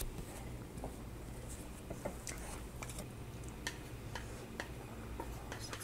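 Faint, scattered clicks and taps from wooden chopsticks working through a pot of simmering ramyun, over a low steady hum.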